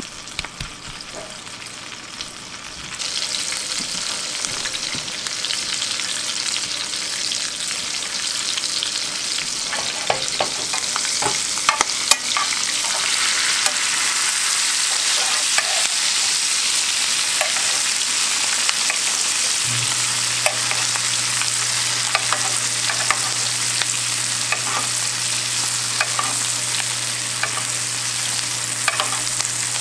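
Butter sizzling in a cast-iron skillet as a rack of whitetail venison ribs sears, the sizzle growing louder about three seconds in. A spoon clicks against the pan again and again while basting the meat with the foaming butter, and a low steady hum comes in about two-thirds of the way through.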